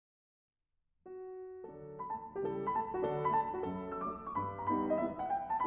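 Silence, then background piano music starts about a second in, a few single notes at first and soon several notes sounding together.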